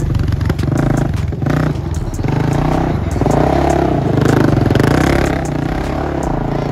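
Suzuki LT-Z400 quad's single-cylinder four-stroke engine revving hard and changing pitch as the rear wheels spin and slide across loose gravel, with tyres scraping and gravel clattering. The revs climb highest in the middle.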